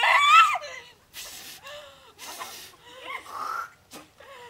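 A young woman's short, high-pitched squeal, then two breathy, unpitched exhalations and more brief vocal sounds, as in laughing, with a sharp click near the end.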